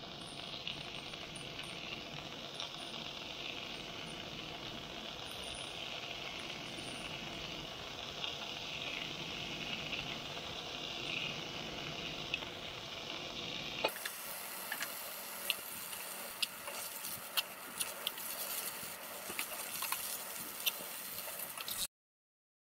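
Pickled mustard greens sizzling in a frying pan over a portable gas burner, a steady hiss. About two-thirds of the way in, after a cut, chopsticks click sharply against the pan as the greens are stirred, over a lighter sizzle, until the sound cuts off suddenly near the end.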